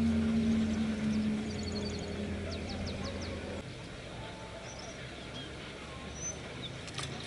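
Small birds chirping in short rapid trills over a steady low hum. The hum drops away sharply about three and a half seconds in, leaving the birdsong.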